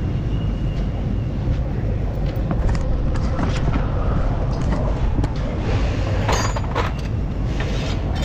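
Scattered metal clinks and knocks from steel suspension parts, a chain and a steel bar being handled, over a steady low rumble.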